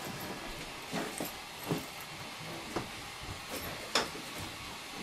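A few light knocks and rustles of objects being handled and moved, over a steady hiss; the sharpest knock comes about four seconds in.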